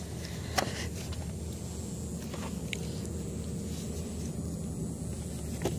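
Light clicks and rustles of a pen and the pages of a paper guest book being handled, a few scattered ticks over a steady low outdoor rumble.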